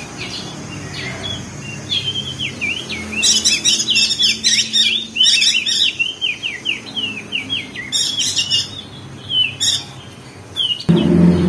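Crested white-eye (opior jambul) chattering fast: quick runs of short down-slurred chirps, broken by several harsh, scratchy bursts. A low hum comes in near the end.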